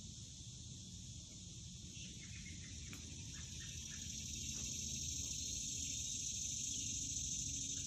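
Steady high-pitched chorus of insects from the summer woods, growing a little louder about halfway through, over a low steady rumble.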